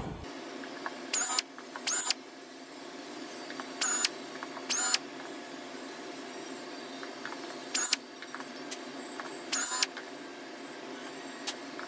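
Pneumatic air drill with a countersink cutter, run in six short bursts of under half a second each at irregular intervals, each burst cutting a flush-rivet countersink in a hole in the aluminium wing-spar flange.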